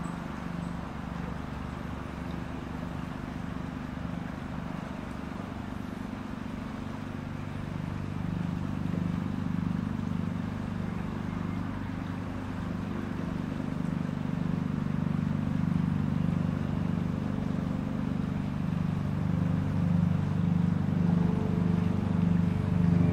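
A motor running steadily, a low hum with a slow wavering beat that grows gradually louder over the second half.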